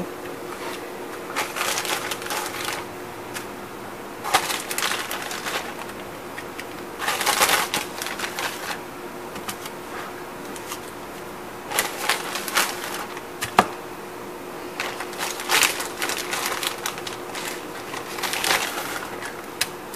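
Irregular bursts of crinkling and rustling from a plastic zip-top bag and aluminium foil as seasoned chicken drumsticks are taken out of the bag and laid into a foil-lined pan, about seven bursts spread through the stretch. A faint steady hum runs underneath.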